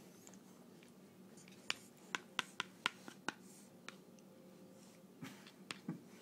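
Baby-feeding spoon clicking sharply against the cereal bowl about seven times in quick succession as the next spoonful of baby cereal is scooped, then two softer knocks near the end.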